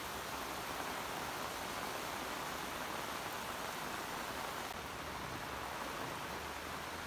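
Heavy tropical rain pouring down, a steady dense hiss.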